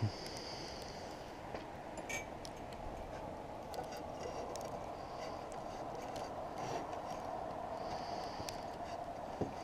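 Light handling sounds: a few soft clicks and a brief scraping as electrical wire is pulled through the metal gooseneck arm of a pole light, over a steady background hum.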